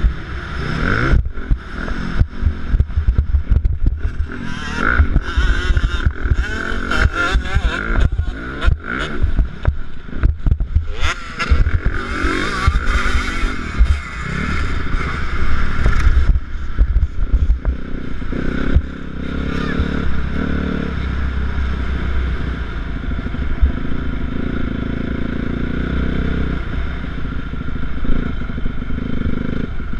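Motocross dirt bike engine revving hard and gliding up and down in pitch under acceleration, with gusts of wind noise on the helmet-mounted microphone. About two-thirds of the way through it settles into a steady, lower running at low speed.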